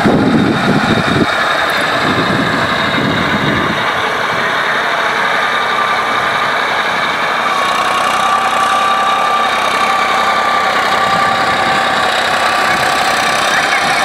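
Tractor engine running steadily as the tractor ploughs the field, with a low rumble in the first second or so.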